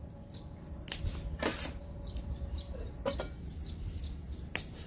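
A few sharp clicks and knocks of handling at a ramen pot over a wood fire, the loudest about a second and a half in. Short high falling chirps sound in the background.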